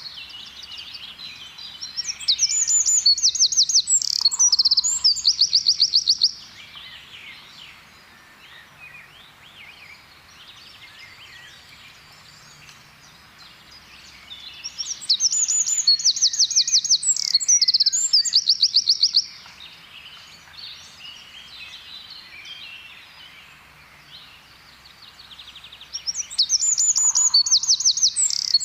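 Eurasian wren singing: three loud bursts of song, each about four seconds of very fast, high trills and warbles, coming roughly ten seconds apart, with fainter birdsong in between.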